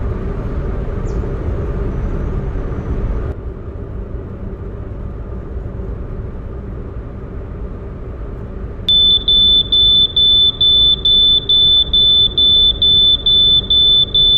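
Steady low vehicle rumble, louder for the first three seconds. About nine seconds in, the CO detector's 85-decibel buzzer starts sounding a loud, high-pitched beep about twice a second: its alarm for carbon monoxide reaching the set concentration.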